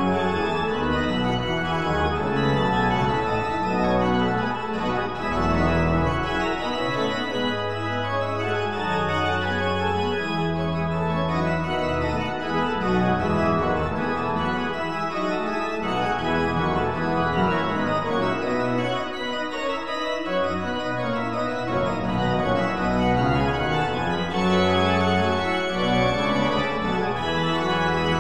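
Slow organ music with long held chords over a bass line that moves every second or two.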